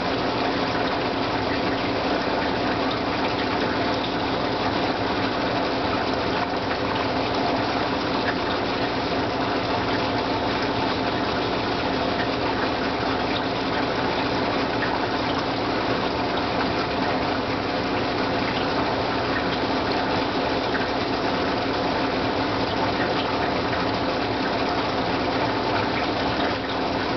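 Aquarium water circulating, a steady splashing gush with a steady pump hum beneath it.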